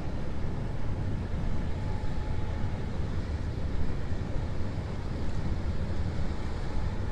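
Low, steady rumble of the cruise ship Marina passing close by, mixed with wind buffeting the microphone. A faint steady tone sounds briefly about two seconds in.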